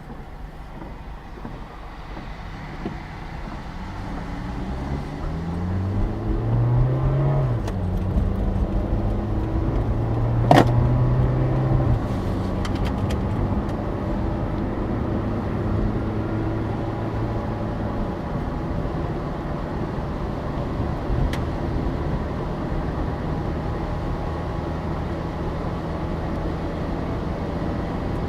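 Car engine and road noise: the engine picks up speed with rising pitch about five to seven seconds in, then runs steadily at an even pitch. A single sharp knock comes about ten seconds in.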